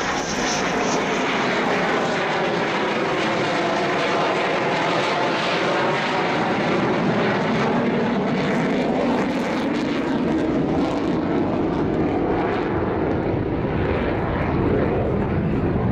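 McDonnell Douglas F-15 Eagle's twin jet engines, a steady loud rush of jet noise as the fighter passes low overhead with its landing gear down, the tone sweeping slowly as it goes by. Near the end it climbs away with both afterburners lit.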